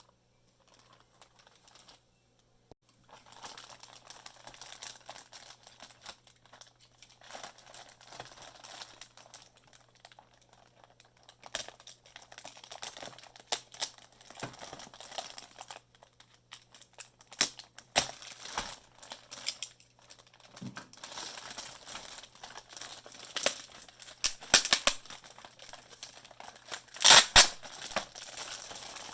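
Packaging being opened and handled: irregular crinkling and rustling with scattered sharp clicks and knocks, starting after a couple of seconds of quiet and loudest near the end.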